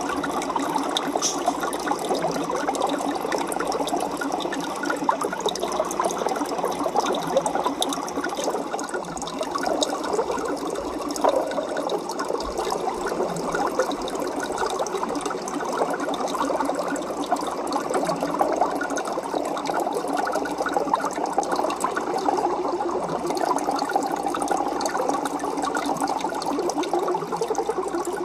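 Aquarium water bubbling and trickling steadily, with a dense fine crackle of small bubbles and splashes.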